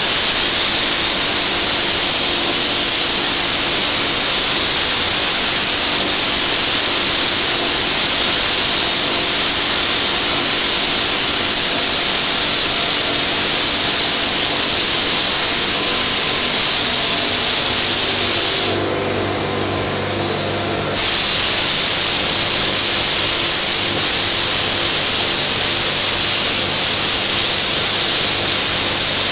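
Gravity-feed paint spray gun hissing steadily with compressed air as it sprays paint. The hiss stops for about two seconds past the middle, leaving a lower machine hum, then starts again.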